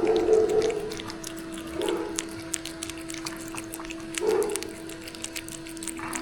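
A dog giving three short vocal sounds about two seconds apart, over a steady hum and light clicking.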